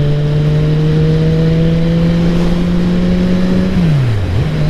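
Motorcycle engine under acceleration at road speed, its pitch rising steadily over a rush of wind noise. Near the end the pitch drops sharply and settles lower, as with an upshift.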